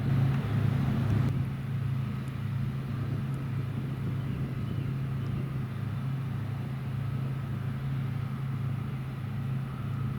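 Heavy harvest machinery running steadily: a deep, even engine hum that pulses about twice a second, with a broader rushing noise above it that drops away about a second in.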